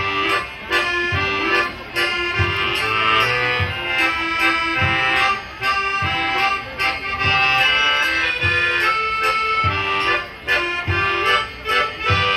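Polish folk band playing a lively dance tune, with an accordion carrying the melody over a steady low beat.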